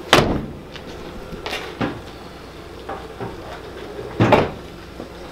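Truck door being pushed shut with a thud just after the start, followed by a softer knock and, about four seconds in, another loud knock.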